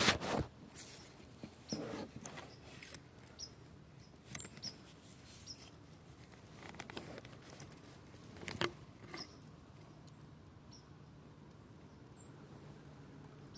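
Scattered rustles and knocks, the loudest right at the start and another about eight and a half seconds in, with faint short high chirps between them. A low steady hum comes in near the end.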